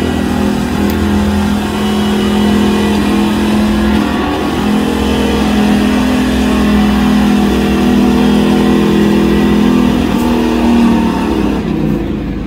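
Modified gas 4x4 pickup truck's engine running at high, held revs under load while pulling a weight-transfer sled. The pitch holds steady with brief dips about four and ten seconds in, then falls away near the end as the pull finishes.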